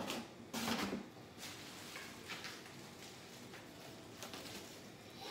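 Shredded paper packing rustling as it is pulled out of a box by hand, with one louder burst just under a second in and a few fainter rustles after.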